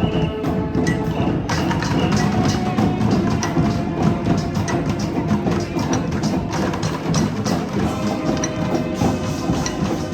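Street band music: horns holding pitched lines over busy percussion with sharp woodblock-like strikes and a steady beat. The percussion grows brighter about a second and a half in.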